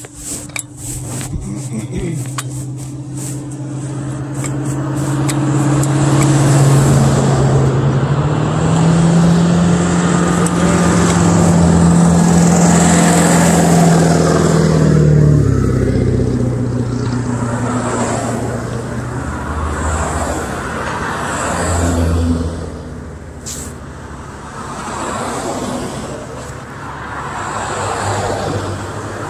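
Vehicles passing one after another close by on a two-lane road, with tyre and road noise swelling and fading as each goes by. A tow vehicle pulling a flatbed trailer loaded with a mini excavator goes past with a strong steady engine note. The note steps up in pitch about a third of the way in and drops away about halfway through. Later a car passes.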